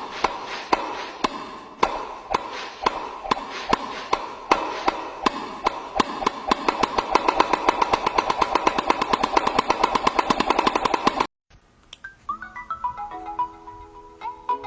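A rapid series of electronic beeps on one pitch, speeding up steadily for about eleven seconds, then cutting off suddenly. After a moment of silence a short melodic electronic tune, like a phone ringtone, starts.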